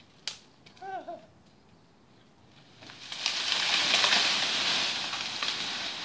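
Leafy bay tree branches crashing and rustling through the surrounding foliage as the cut tree comes down. It starts about three seconds in with crackling snaps, swells and then slowly dies away. A sharp click and a short pitched call come first.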